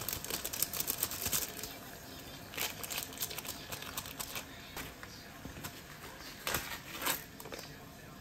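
Plastic instant-ramen seasoning sachets crinkling as they are shaken and squeezed out over a pot, with dense crackling at the start and a few separate sharp rustles later, over water boiling in the pot.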